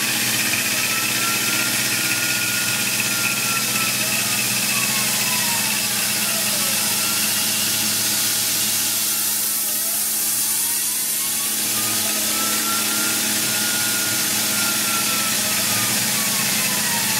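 Tormach PCNC 1100 CNC milling machine running a helical pass with an end mill, cutting a spiral grease groove in a steel fork-link post. A steady hiss and hum, with a faint whine that rises and falls in pitch every few seconds as the axes move the cut around the post.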